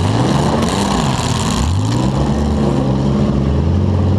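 Demolition derby car's engine revving up twice, first at the start and again about halfway through, then held at high revs.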